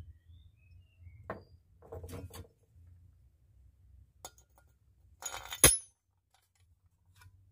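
Steel body-mount bolts and washer being handled against a steel patch plate: scattered metal clinks and clatters, the loudest a sharp ringing clink shortly before the end.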